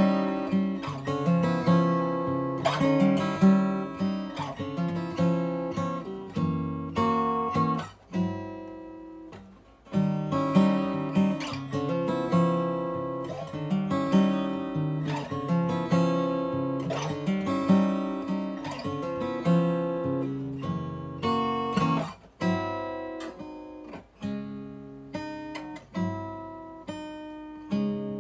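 Solo acoustic guitar played as an instrumental, chords picked and strummed in a steady pattern. About eight seconds in, one chord is left to ring and fade for about two seconds before the playing picks up again.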